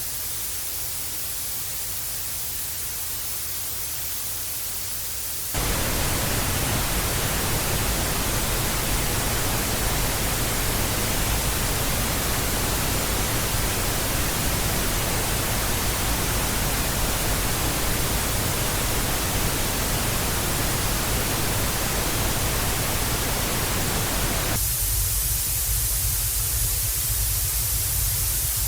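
TV static hiss, a steady rushing noise. About five seconds in it switches from a thin, high hiss to a fuller, louder static that spreads down into the lows. About four seconds before the end it switches back to the thin hiss.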